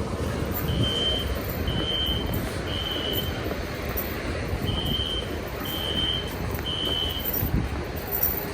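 System Sensor SpectrAlert Classic fire alarm horn sounding the three-beep temporal evacuation pattern: two sets of three short high beeps with a pause between them. It has been set off during a sprinkler alarm test. A steady low rumble runs underneath.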